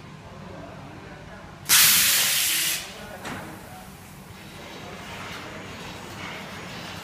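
A sudden loud hiss of rushing compressed air, lasting about a second, then a shorter, weaker puff, over a low steady hum.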